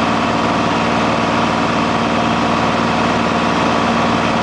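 Cessna 182's single piston engine and propeller running steadily in flight, heard from inside the cabin as a constant low hum under a rush of air noise.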